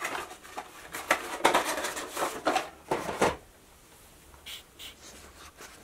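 Small cardboard model-kit box being handled and closed: a quick run of papery scrapes, flap rustles and light knocks for about three seconds, then a couple of faint taps.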